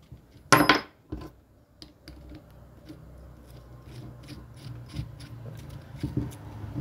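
Small metal parts and tools being handled on a workbench: a sharp ringing metallic clank about half a second in, a duller knock just after, then light clicks and taps of metal parts, over a low steady hum.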